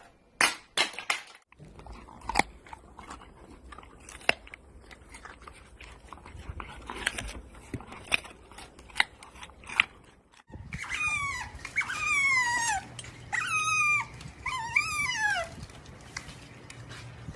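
A dog whining in a series of high, drawn-out cries that fall in pitch, a little past the middle. Before that come scattered sharp clicks and knocks.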